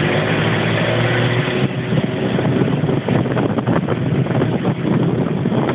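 A car driving at road speed: steady engine and tyre noise, with wind rushing and buffeting past the open window, rougher from about two seconds in.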